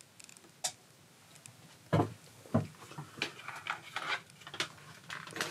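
Scattered handling knocks and clicks, with two louder knocks about two seconds in, followed by a run of lighter taps and rubs.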